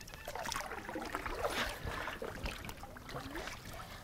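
Water noises from a canoe being paddled: paddle dips with trickling and dripping water, uneven and with no set rhythm.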